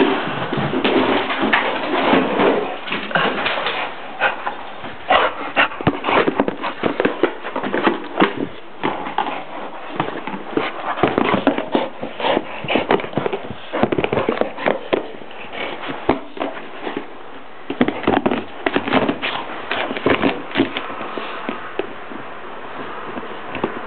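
A pit bull chewing and pawing an empty plastic jug, the thin plastic crackling and crunching in dense, irregular clicks.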